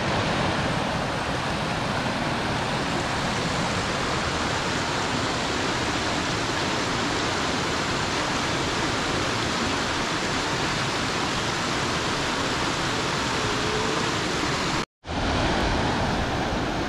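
Steady rushing of Dodd Creek's water pouring over a waterfall, broken by a brief dropout about fifteen seconds in.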